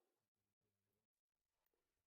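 Near silence: the sound track is essentially muted.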